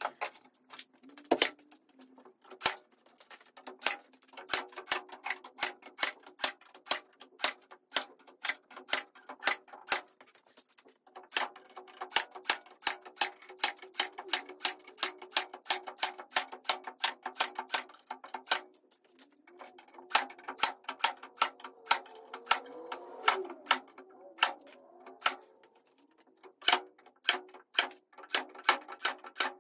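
Sharp clicks repeating at an even pace of about two a second, with a couple of short breaks, over a steady tone.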